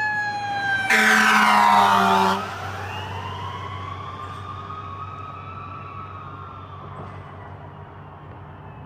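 Emergency vehicle siren going by, its wail gliding down in pitch. About a second in comes a loud blare lasting about a second and a half. After it the wail rises and falls slowly and fades away.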